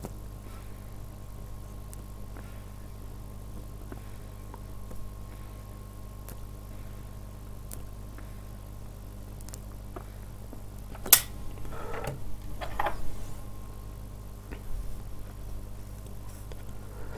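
Quiet puffing on a tobacco pipe as it is relit with a lighter flame, over a steady low hum. A sharp click about eleven seconds in, then a few short breathy puffs.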